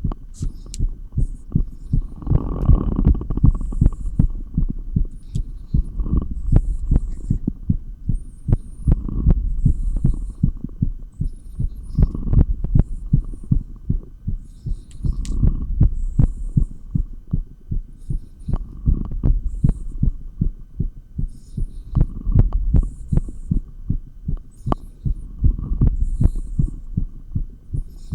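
Fast heartbeat heard through a stethoscope on the chest: a rapid run of low thumps, several a second, with louder swells of rumble every few seconds, during dumbbell exercise.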